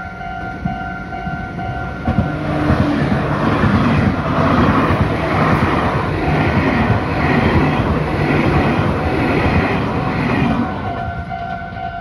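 Red Meitetsu electric train passing at speed over a level crossing, its wheels clattering over the rail joints in a regular rhythm from about two seconds in, fading near the end. The crossing's warning bell rings steadily throughout.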